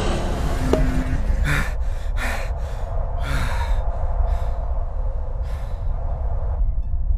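A steady low rumble under a series of short gasping breaths, about seven of them; part of the rumble cuts off near the end.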